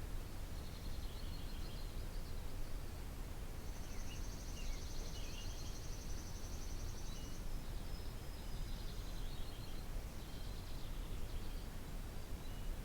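Songbirds singing outdoors: several short high phrases and, about four seconds in, a rapid high trill lasting about three seconds, over a steady low rumble.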